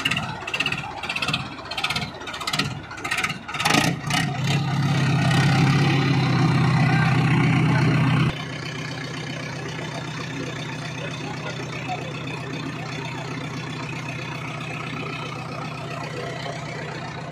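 Diesel tractor engines straining at high revs, pulling against each other on a chain in a tug-of-war. The first few seconds are an even pulsing, about two to three a second. A loud, steady drone follows and drops sharply in level about eight seconds in.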